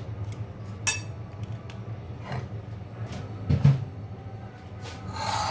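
Metal spoon clinking and scraping against a silicone spatula and a bowl as ground coriander is scraped onto raw fish pieces. There are a few sharp clinks, a louder knock about three and a half seconds in, and a longer scrape near the end.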